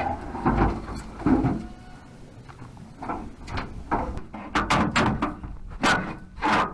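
A string of short knocks and clunks: two heavier thumps in the first second and a quicker run of sharp knocks in the second half.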